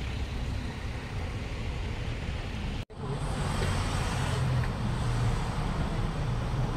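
Street ambience with road traffic: a steady low hum of vehicles running past. The sound drops out for an instant about three seconds in, then resumes.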